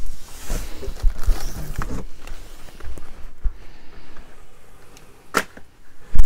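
Boxed goods being rummaged and handled: rustling and light clatter as items are shifted, then two sharp knocks of cardboard packaging a little before and right at the end, the last one the loudest.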